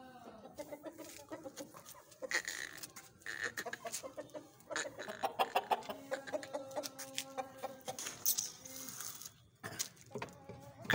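Aseel roosters clucking, with many sharp taps scattered through, typical of beaks pecking at the floor.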